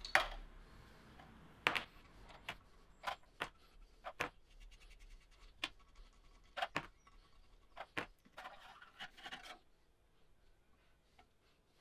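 Inlet manifold gasket being prised and peeled off a Honda K20 cylinder head, with a scraper working along the mating face: irregular sharp clicks and short scrapes. A denser patch of scraping comes about eight and a half seconds in, and then it goes quiet.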